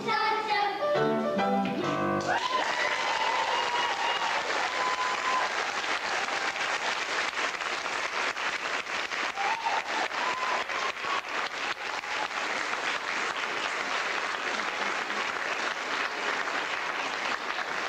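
Dance music ends abruptly about two seconds in, and an audience applauds for the rest.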